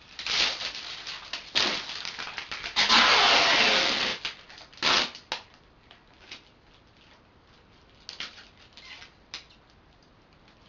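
Adhesive tape being pulled off its roll while it is wound around a string of bottles: a long loud rasp about three seconds in, with shorter rasps and crackles before and after, then only faint handling noises in the second half.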